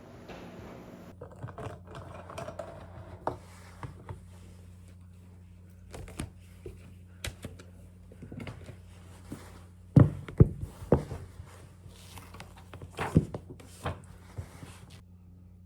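Irregular light clicks, taps and knocks of small objects being handled, a few louder knocks about two-thirds of the way through, over a steady low hum.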